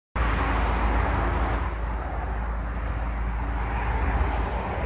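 MAN M2000 concrete mixer truck's diesel engine running steadily at idle, starting abruptly just after the beginning.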